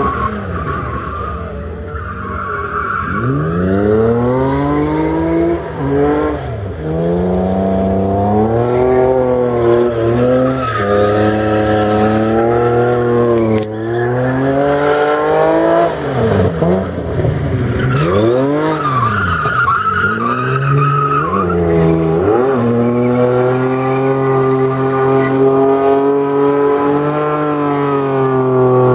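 BMW E30 drift car's engine revving hard, its pitch sweeping up and down again and again, with tyres squealing as the car slides. For the last several seconds the engine holds high, fairly steady revs.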